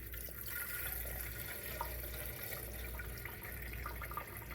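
Water running steadily into the coffee maker's removable plastic water reservoir as it is filled.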